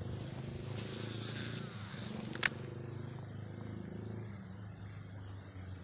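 A cast with a spinning reel: a sharp click about two and a half seconds in, over a steady low engine-like hum.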